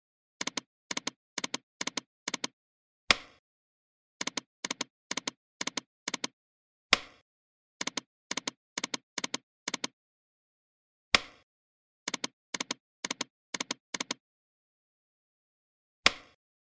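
Online slot machine game sound effects: runs of quick, evenly spaced ticks as the reels stop one after another, each run set off by a single louder click with a short ring-out. The cycle repeats about four times, losing spins with no win jingle.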